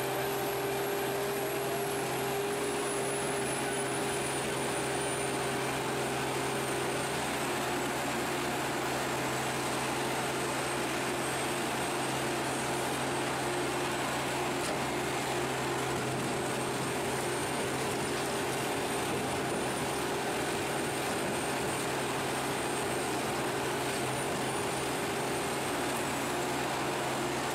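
Morbark HT1684 Predator tracked stump shredder and its feeding excavator running, a steady diesel drone with a thin high whine that wavers slowly in pitch.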